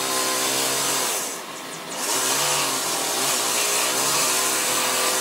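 Workshop power tool running: a motor hum whose pitch wavers, over a steady hiss, dipping briefly about a second and a half in.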